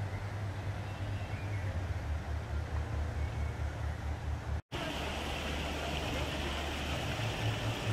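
Outdoor city-park ambience: a steady low rumble, with faint distant voices. A little past halfway the sound drops out for an instant, and after that a steady hiss joins the rumble.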